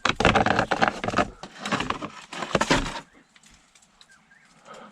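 Rapid crackling and clattering, as of material being handled or broken, for about three seconds, then it stops.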